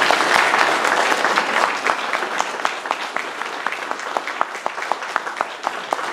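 Audience applauding, loudest at first and slowly thinning, with one person's sharp claps close to the microphone standing out at about three a second.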